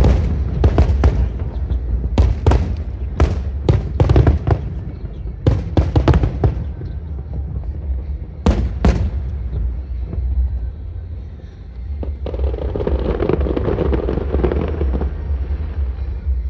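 Fireworks display: aerial shells bursting in quick succession for the first several seconds, then two more bangs close together, with music playing underneath.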